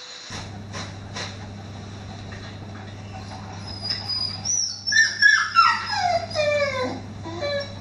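A pet's high whining cries: a string of short calls, most falling in pitch, starting about halfway through and growing louder, over a steady low electrical hum. Three faint knocks come in the first second or so.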